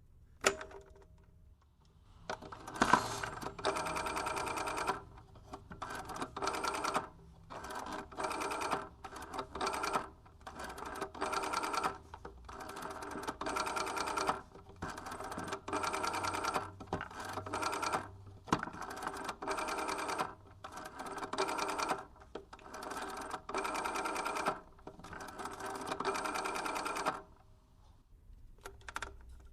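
Old telephone's rotary dial being dialled: a click near the start, then a long run of digits, each a whirring, buzzing return of the dial lasting from a fraction of a second to about a second, with short pauses between.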